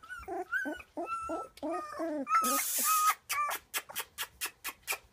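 Young golden retriever puppies whimpering in short, high, wavering cries through the first half. About two and a half seconds in comes a brief hissing rush, followed by a quick, even run of about a dozen sharp clicks, some six a second.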